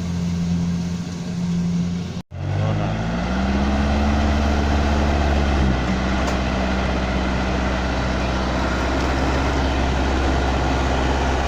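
Engine of a rice-harvesting machine running steadily; after a brief break about two seconds in, it rises in pitch and settles at a higher, steady speed, easing slightly about halfway through.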